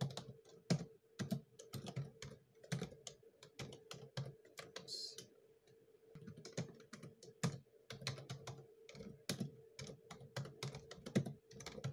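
Typing on a computer keyboard: irregular keystroke clicks in short runs with brief pauses, over a faint steady hum.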